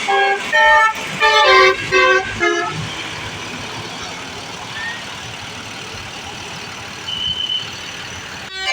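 Bus 'basuri' telolet horn, a multi-tone melodic air horn, playing a quick run of short chord blasts for the first two and a half seconds, then a stretch of steady background noise before the horn starts again at the very end.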